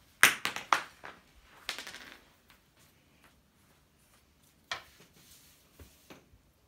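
Hockey pucks clacking as they are gathered up: a quick run of sharp clacks in the first second, a brief scrape about a second later, then a few scattered knocks near the end.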